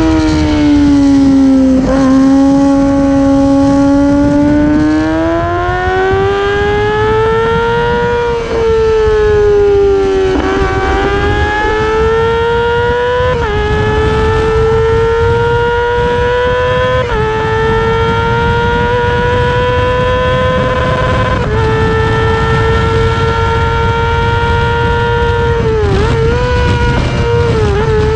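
Racing motorcycle engine at high revs, heard onboard with wind rush. The revs sag and climb again as the throttle eases off and opens, then the bike pulls through the gears, each upshift a sudden drop in pitch, and near the end it blips the throttle on quick downshifts.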